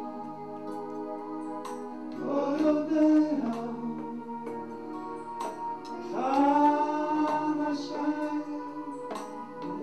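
A man singing slow, drawn-out phrases into a microphone over a steady held musical accompaniment; his voice swells and glides in pitch in two phrases, about two and six seconds in, with light clicks scattered through.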